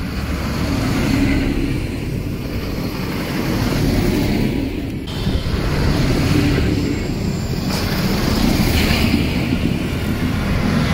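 Farm tractor engines running as the tractors pass one after another along a road, the sound swelling and easing as each goes by, with a couple of abrupt breaks about halfway through. The recording plays at double speed, so the engines sound higher and faster than in life.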